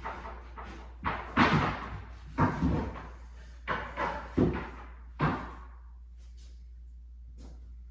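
A string of about eight irregular knocks and thuds, like wood being handled and set down, ending about five and a half seconds in.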